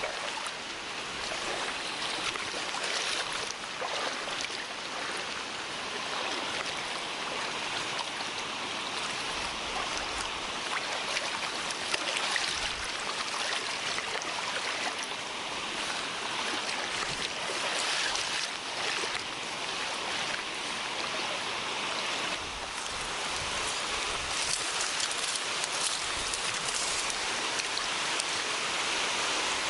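Mountain stream water rushing with a steady hiss.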